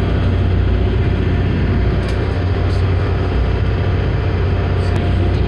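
Steady low drone of an NYC Ferry's diesel engines heard inside the passenger cabin, with a constant rushing noise, as the boat runs underway through choppy water.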